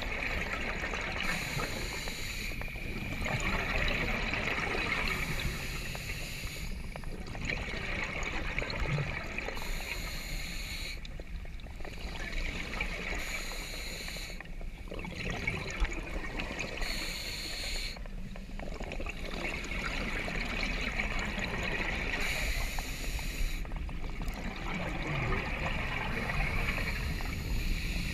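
Scuba diver breathing through a regulator underwater: a hiss on each inhale and a rush of exhaust bubbles on each exhale, in slow, regular breaths a few seconds apart.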